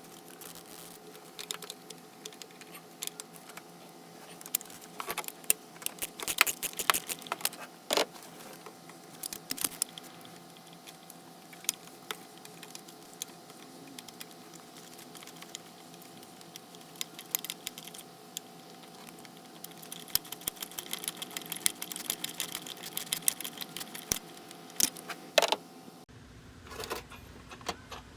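Irregular clicks and metallic clinks of hand tools and parts being handled during a car starter replacement, in scattered clusters over a faint steady hum.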